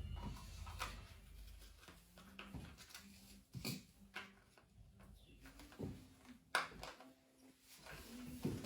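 Faint rustling and a few soft clicks from handling a down quilt while hand-sewing it with needle and thread.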